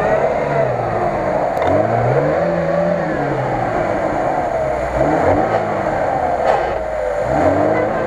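Lada Niva (VAZ-2121) four-cylinder engine revving up and down again and again as the car works its way through deep mud ruts.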